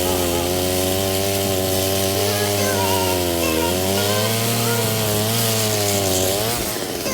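Two-stroke chainsaw running at high speed while cutting branches, its pitch dipping twice, about three and a half and six and a half seconds in, and dropping off near the end.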